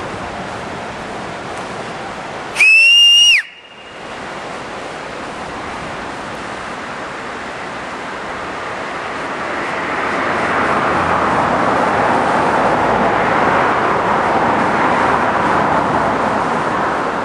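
A single loud, high whistle lasting about a second, about two and a half seconds in, its pitch dropping sharply as it cuts off. Under it is a steady rushing noise that grows louder in the second half.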